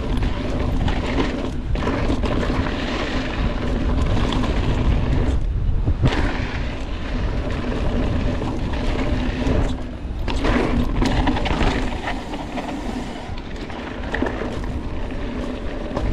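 Mountain bike riding heard from an onboard camera: a steady rush of wind on the microphone mixed with the rumble and rattle of the bike on a dirt trail, easing briefly about five and a half and ten seconds in.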